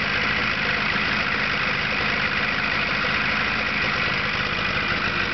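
2002 Polaris Edge X 700 snowmobile's twin-cylinder two-stroke engine idling steadily, with no revving; this is the running sound the owner calls weird.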